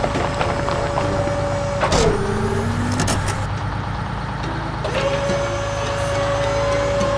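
Cartoon truck engine sound effect: a steady engine hum with a held whine that drops suddenly about two seconds in with a swooping sound, then returns about five seconds in.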